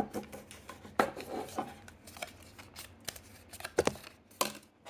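Cardboard packaging being handled and slid out of its sleeves: soft rubbing and scraping with scattered sharp taps and clicks, the strongest about a second in and again near the end.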